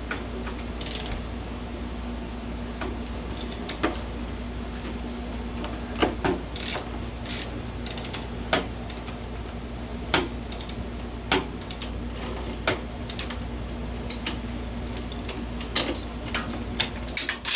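Ratchet wrench clicking in short, irregular runs while engine top-end bolts are tightened, with a few sharper metallic taps near the end, over a steady low hum.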